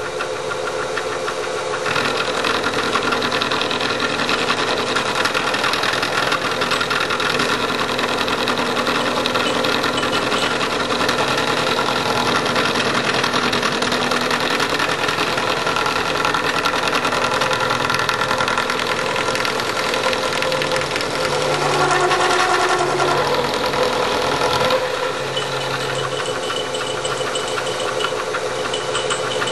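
Vertical milling machine's end mill cutting into an Austin-Healey Sprite front spindle, taking one of several passes to remove about 0.200 in from its face so a Wilwood disc-brake caliper will sit right. A steady machining hum with many tones, a little quieter from about 25 s in.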